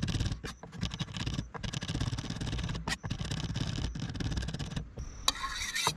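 Kitchen knife rapidly chopping on a cutting board, mincing capers toward a paste, in quick irregular taps, with a longer scrape of the blade near the end.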